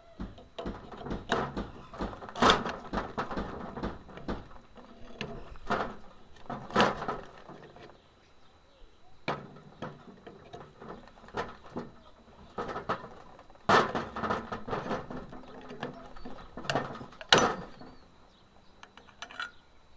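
Bolt cutters biting into a refrigerant compressor's metal case, crunching and creaking as the jaws close, with a sharp crack each time a piece of the case snaps off; four cracks stand out as the loudest.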